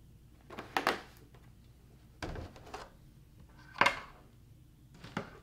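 A plastic gallon milk jug set down on a wooden table and a spoon knocking against a cereal bowl: about five separate knocks and clinks, the sharpest about two-thirds of the way through.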